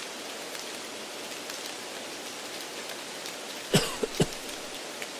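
A steady rain-like hiss of background noise, laid over the test recording to mimic a noisy exam room. About three-quarters of the way through come two short, loud cough-like sounds.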